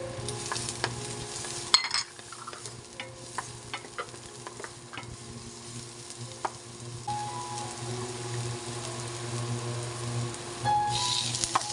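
Minced garlic and sliced onion sizzling in oil in a frying pan while a spatula stirs them, with scattered ticks and knocks of the spatula on the pan and one sharp knock about two seconds in. The sizzle grows louder near the end, over a steady low hum.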